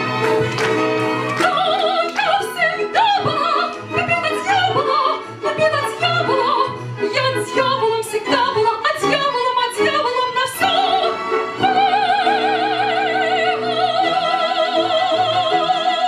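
Female operetta singer with a wide vibrato over instrumental accompaniment, singing quick melodic runs and then, about two-thirds of the way in, settling on one long held note.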